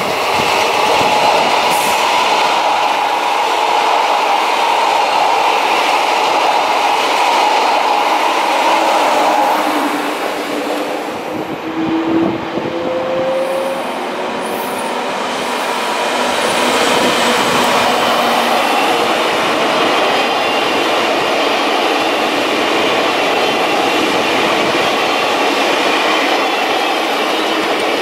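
Electric trains rolling past at close range: steady noise of steel wheels on rails, first from a double-deck electric multiple unit, then from a BB 17000 electric locomotive hauling double-deck VB2N coaches. The noise dips about ten seconds in, a short rising whine comes a couple of seconds later, and the passing noise then builds again.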